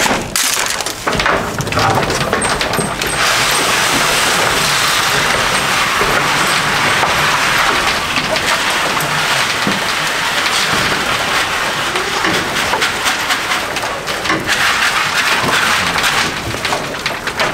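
Dry goat feed poured from a plastic bucket into a wooden trough: a steady rattling hiss of pellets that starts a few seconds in and runs on, easing briefly a few times as the pour moves along the trough.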